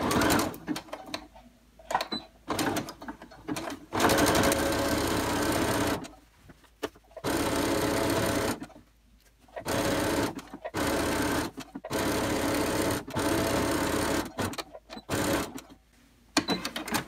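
Domestic electric sewing machine stitching through a thick terry-cloth towel in short stop-and-start runs, the longest lasting about two seconds.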